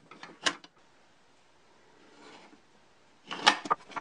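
Wooden parts of a handmade combination lock model clacking as it is handled and worked. There is a single sharp knock about half a second in, then a quick cluster of wooden clacks near the end.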